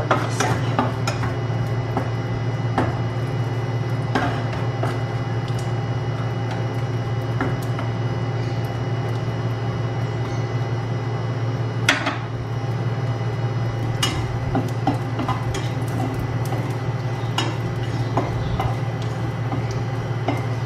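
Plastic spatula scraping and clacking against a stainless steel frying pan as slices of chorizo de Bilbao fry in a little oil, with irregular knocks, the sharpest about twelve seconds in. A steady low hum lies underneath.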